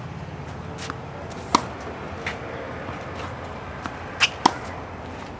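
Tennis ball being hit with a racket and bouncing on a hard court: a sharp pop about a second and a half in, and two more close together near the end, with a few fainter taps between.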